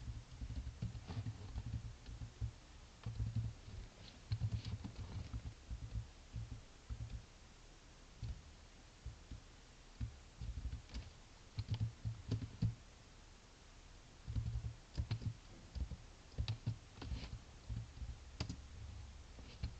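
Typing on a computer keyboard: irregular runs of key clicks and dull key thumps, with short pauses between runs.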